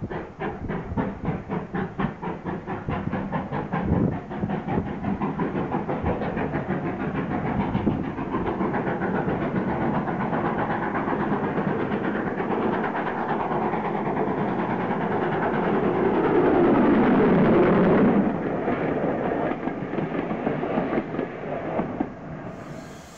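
GWR 4300 Class 2-6-0 steam locomotive No. 5322 approaching under steam with a fast, regular exhaust beat of about four beats a second. The beat merges into a continuous rush of exhaust and the rattle of wheels and coaches as it passes close, loudest about three-quarters of the way through with a falling sweep in pitch. The sound cuts off suddenly near the end.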